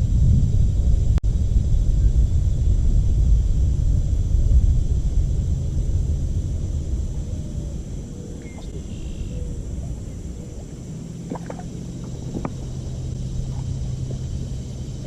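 A small boat's motor running with a low rumble that fades about halfway through. It settles into a steady low hum for the last few seconds, with a few light knocks.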